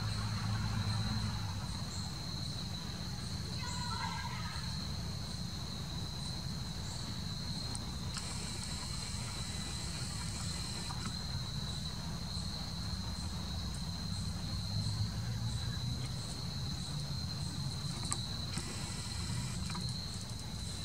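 Insect chorus: a steady high-pitched trill, with a second insect call pulsing a little more than once a second above it and louder buzzy stretches twice. A low steady hum runs underneath.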